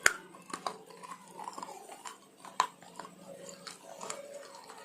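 Chocolate being bitten and chewed close to the microphone, with sharp crunchy snaps. The loudest snap is right at the start and another comes about two and a half seconds in.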